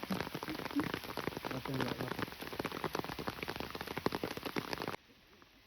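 Rain falling on a hard surface close by, a dense spatter of individual drop hits. It stops abruptly near the end, leaving a low hiss.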